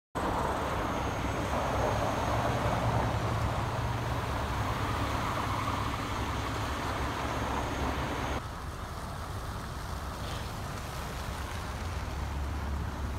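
Heavy tow trucks' diesel engines idling, a steady low rumble, with road traffic noise over it; the higher hiss drops away abruptly about eight seconds in, leaving the rumble.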